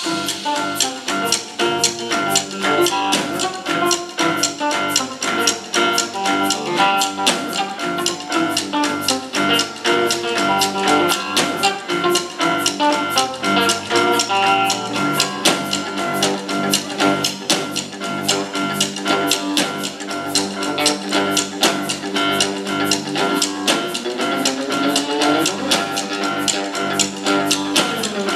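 Live blues band playing an instrumental passage: an electric guitar leads over a drum kit keeping a steady beat. Near the end the guitar notes slide up and down.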